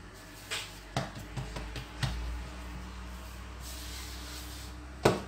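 Hands working soft dough on a floured countertop: a few light pats and knocks, then a brushing hiss as flour is swept across the surface by hand, and a sharp knock near the end.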